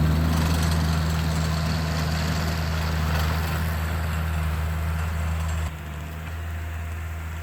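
Engine of a Vermeer compact loader running steadily while working with a snow box. Its sound drops noticeably about five and a half seconds in.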